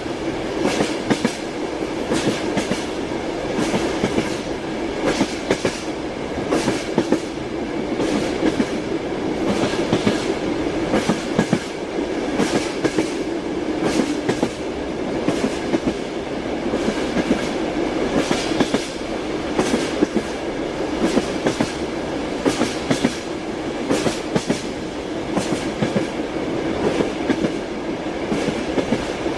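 Train wheels clattering over rail joints, with a continuous rumble of the moving carriage. Frequent sharp clicks sit over it, with faint steady tones.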